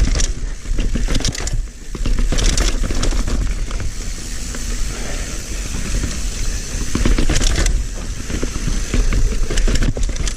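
Mountain bike riding over a rough, rocky dirt trail: tyres crunching and the bike rattling, with many sharp knocks over a steady low rumble.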